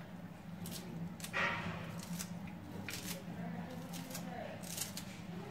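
Fresh coriander being cut by hand: a few short, crisp snips at uneven intervals, the loudest about a second and a half in.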